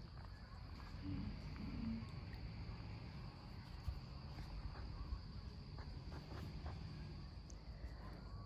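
Crickets chirping in a steady chorus, a continuous high band over a low rumble.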